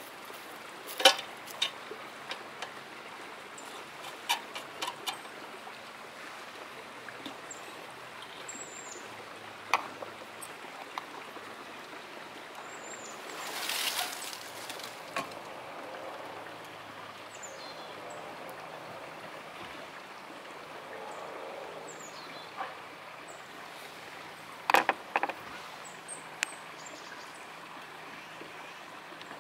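Scattered light clicks and taps of a screwdriver and metal fittings being handled on a live-steam model locomotive as its fuel cap, fuel valve and lubricator are worked, over steady outdoor background noise. A brief rush of noise rises and falls about halfway through.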